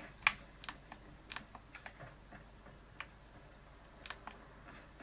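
Faint, irregular light clicks and taps from a smartphone during shooter-game play, about a dozen scattered over a few seconds, the sharpest one near the start.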